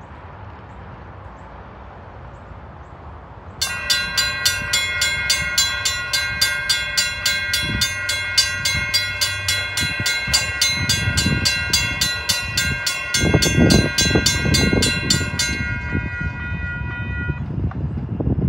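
Railroad crossing warning bells start about three and a half seconds in, ringing in a fast, even series of strikes during a crossing activation test, and stop a few seconds before the end. Near the end a lower rumble joins in as the crossing gates begin to lower.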